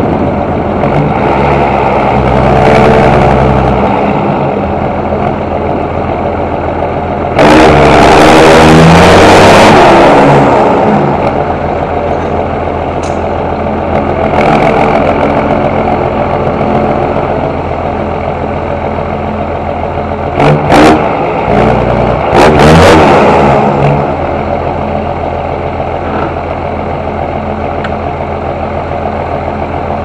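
John Deere 6820 tractor's diesel engine running, with a loud rev lasting about three seconds a quarter of the way in and a few brief sharp bursts of sound about two-thirds through, then settling back to a steady run.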